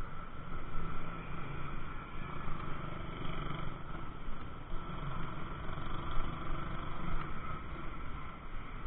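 Wind rushing unevenly over a cyclist's camera microphone while riding, mixed with the running engines of cars and motorcycles in street traffic.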